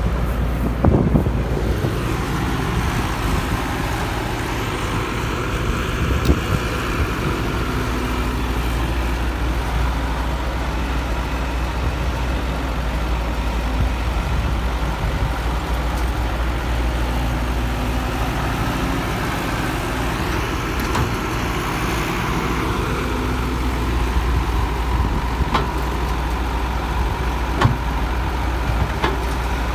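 Excavator's diesel engine running steadily, with a few sharp knocks now and then.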